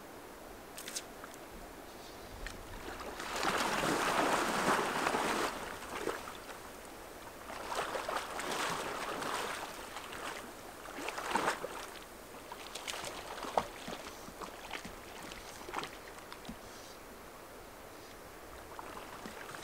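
Water swishing and splashing around an angler's waders as he wades in a slow creek, in uneven surges, the loudest about four seconds in, with scattered light clicks.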